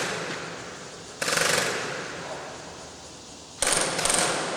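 Airsoft electric guns (M4 and AK replicas) firing short full-auto bursts: a rapid mechanical rattle, twice, one about a second in and another near the end, each trailing off in an echo.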